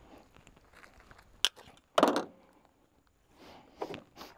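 Handling clicks as a Canik MC9 LS 9 mm pistol is readied: a sharp click about a second and a half in, then a louder clack half a second later. Footsteps crunching on gravel begin near the end.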